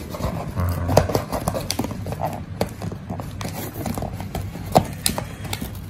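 Cardboard rustling and scraping with irregular knocks and clicks, as a boxed hair trimmer is pulled out of a cardboard shipping carton.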